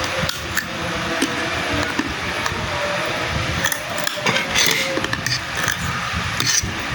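Spicy rice vermicelli being eaten: short slurping and smacking sounds in the middle and near the end, over a steady background hum.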